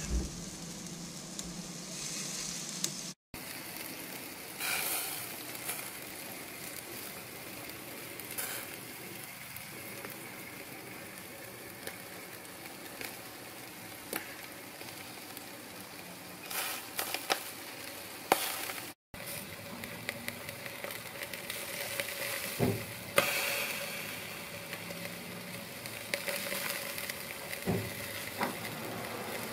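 Marinated chicken pieces sizzling on a barbecue grill's wire rack, a steady hiss with scattered short pops and crackles. The sound drops out briefly twice.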